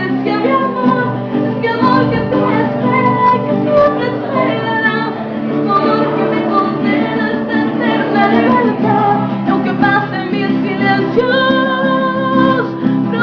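A song sung with guitar accompaniment, with a long held note near the end.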